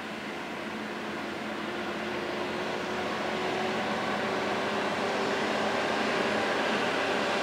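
Diesel engines of heavy-haulage prime movers and pusher trucks pulling an oversize load, a steady drone growing gradually louder as they approach.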